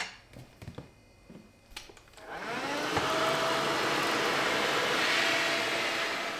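Handheld hair dryer switched on about two seconds in, its motor whine rising as it spins up, then blowing steadily. Before it, a sharp click at the start and a few light taps.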